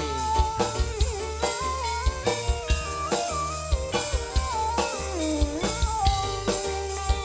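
Jaranan dance music playing: a melody that slides and bends in pitch over a steady drum beat and a low bass line.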